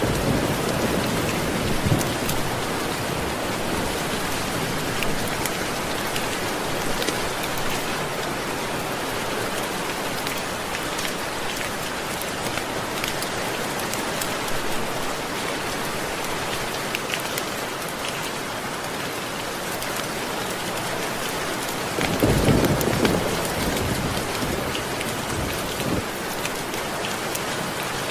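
Steady heavy rainfall, a continuous even hiss of drops, with a low rumble of thunder at the start and a louder roll of thunder about three-quarters of the way through.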